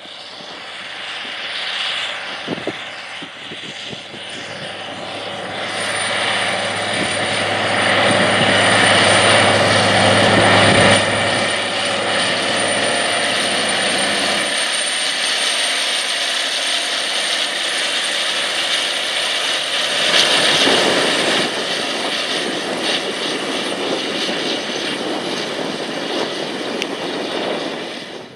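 Caterpillar Challenger 95E track tractor's diesel engine working under load while pulling a vertical tillage tool through the field, with a broad rushing noise over a steady low engine drone. It grows louder as the tractor approaches over the first ten seconds or so, then stays loud as it passes.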